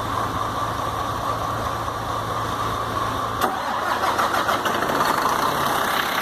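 Iveco 480 truck's diesel engine being started after repair: a steady engine hum, then about three and a half seconds in a sharp click as the engine cranks and catches at once, running with a rougher, rhythmic note.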